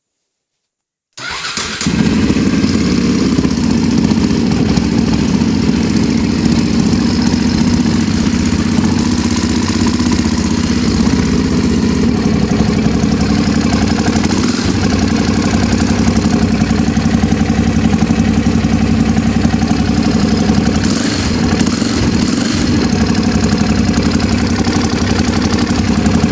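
KTM 640 LC4 single-cylinder four-stroke engine starting about a second in, then running steadily at idle with its valve clearances freshly adjusted.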